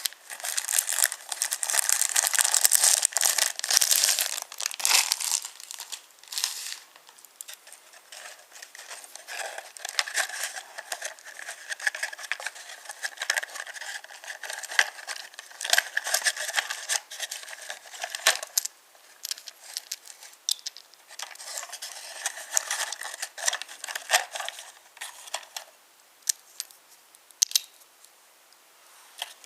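Wooden toy trains rolling over wooden railway track: a dry rattling clatter with many small clicks, loudest in the first few seconds and dying away near the end.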